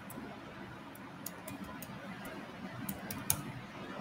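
Computer keyboard keys clicking as a password is typed: several separate keystrokes, unevenly spaced, over a faint steady background hiss.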